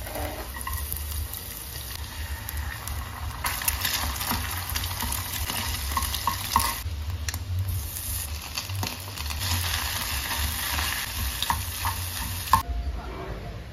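Shallots, garlic, then scrambled egg and corned beef sizzling in hot oil in a small nonstick saucepan, stirred with a spatula that scrapes and clicks against the pan. The sizzle gets louder about three and a half seconds in and eases off near the end.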